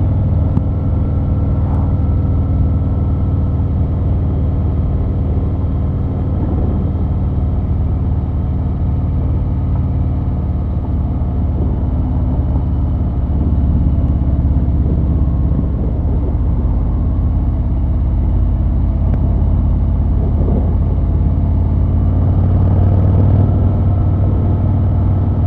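Harley-Davidson Milwaukee-Eight 114 V-twin of a 2023 Fat Boy, breathing through Vance & Hines Eliminator 300 slip-on mufflers, running steadily at cruising speed on the road.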